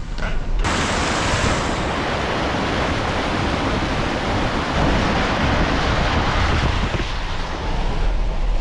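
Heavy rain pouring down, a loud steady hiss that comes in abruptly about half a second in as the car door opens to the downpour.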